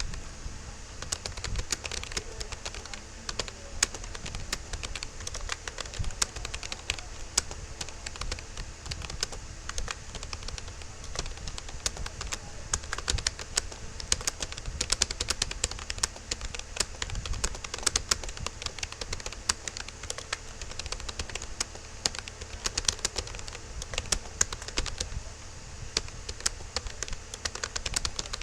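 Fast continuous touch typing on a Rapoo computer keyboard: a rapid, uneven stream of key clicks, several a second, with a low hum underneath.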